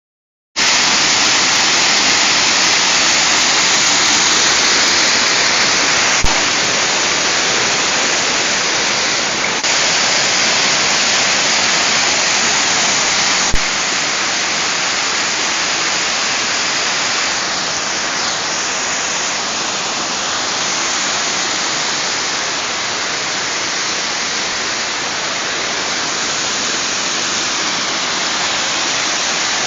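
Waterfall's water falling in a steady, loud, unbroken rush, with two short clicks about six and thirteen seconds in.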